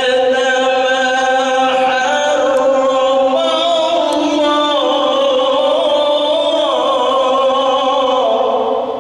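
A man's solo voice reciting the Quran in melodic tilawah style into a microphone. He draws out one long phrase in held notes that slide and waver in ornamented turns, and it ends near the end.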